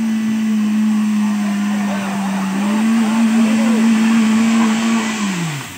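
Small van's petrol engine held at high revs as it is driven through deep mud, the pitch steady then rising a little before the revs drop off sharply near the end. Men's voices call out over it.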